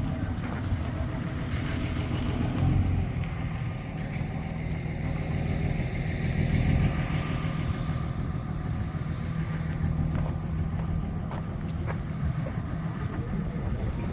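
A vehicle engine running steadily at a constant speed, a low even rumble.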